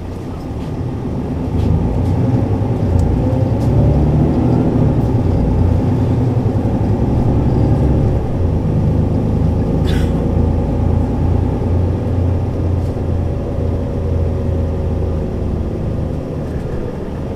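Mercedes-Benz O 530 Citaro city bus's diesel engine, heard from inside the passenger cabin, accelerating: the engine note climbs over the first several seconds, then runs on as a steady drone with road rumble, easing off a little near the end. A single sharp click about ten seconds in.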